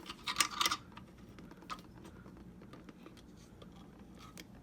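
Light clicking and scraping of a screw being worked by hand into the metal frame of a Hover-1 Buggy hoverboard kart, bunched in the first second. After that it is mostly quiet, with a few faint ticks.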